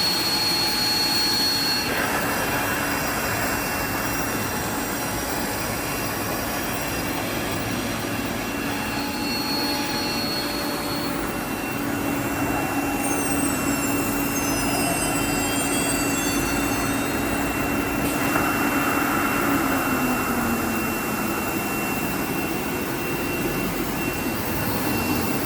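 CNC wood router running, a steady machine roar with a high whine from the spindle. Partway through, several tones slide up and down in pitch, and near the end a low hum drops in pitch.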